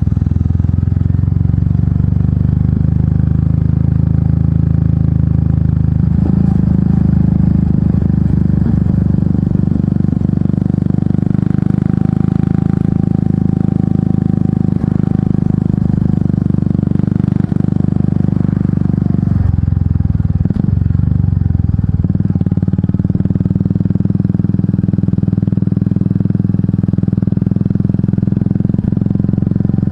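Royal Enfield Meteor 350's single-cylinder engine running through an aftermarket exhaust under way. The engine note steps up about six seconds in and drops briefly around twenty seconds in before settling again.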